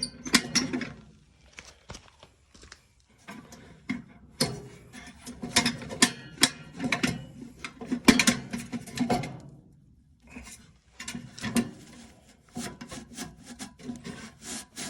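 Irregular rubbing, scraping and clicking of metal parts handled by hand: the wick and wick cage of an old wick-type heater being worked and repositioned, with a couple of short pauses.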